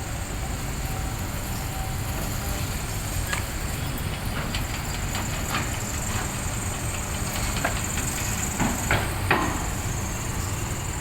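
Heavy diesel construction machinery running steadily with a low rumble, with scattered knocks and clanks, several of them close together about nine seconds in.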